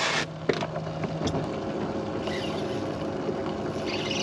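Steady low mechanical hum aboard a bass boat, with a few light clicks and knocks in the first second and a half.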